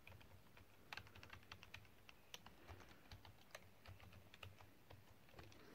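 Faint computer keyboard typing: irregular key clicks, a few a second, as a word is typed, deleted and retyped.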